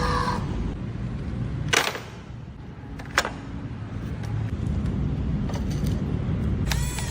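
Radio-controlled toy excavator working: a steady low rumble with two sharp plastic clicks about two and three seconds in, then a small electric motor whining near the end.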